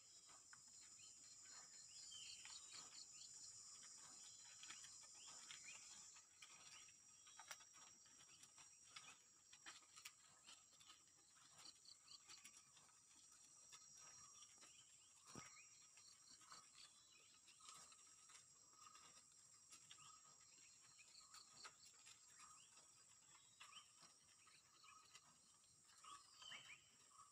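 Faint forest ambience: a steady high-pitched insect drone, louder for the first six seconds, with a few short bird chirps and scattered faint ticks.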